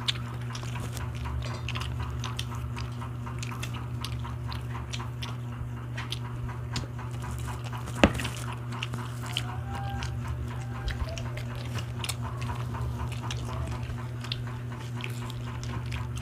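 Close-up eating sounds: wet chewing, lip-smacking and small clicks as people eat grilled barbecue skewers and rice by hand, over a steady low hum. One sharp click about halfway through is the loudest sound.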